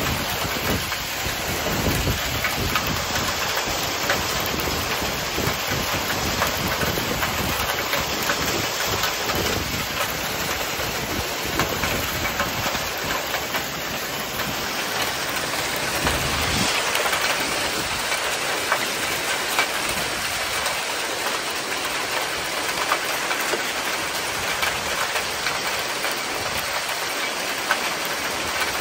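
Heavy rain mixed with hail pouring down: a steady, dense hiss peppered with small sharp ticks of hailstones striking, with low gusts of wind that are heavier in the first half.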